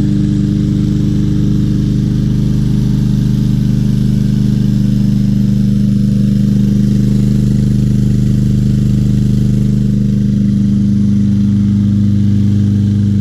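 Craftsman M320 lawn mower's 163cc Briggs & Stratton single-cylinder engine running steadily with its air filter removed, just after starting on the pull.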